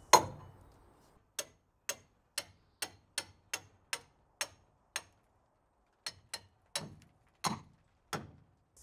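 Claw hammer striking a metal fastener into a timber beam: one hard blow at the start, then a run of lighter, even taps about two a second, with a short pause midway.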